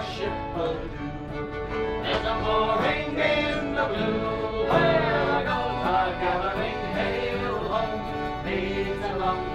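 Live acoustic band playing a pirate song on acoustic guitar and fiddle, with a singing voice over them.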